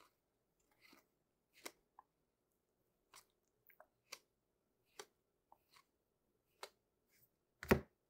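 Trading cards being flipped through by hand one at a time: faint, crisp card snaps and slides about once a second, with a louder knock near the end.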